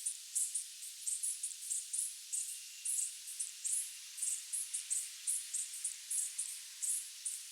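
Night insects chirping: short, high-pitched chirps repeating unevenly about two to three times a second over a steady high hiss of more distant insects.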